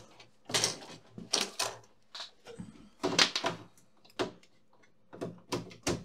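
Handling noises on a repair bench: a string of short knocks, clatters and rustles, about eight separate bursts, as things are picked up and moved about.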